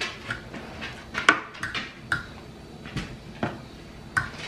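Metal fork clinking and scraping on a plate of rice and chicken, with a few sharp clicks, alongside chewing and lip-smacking.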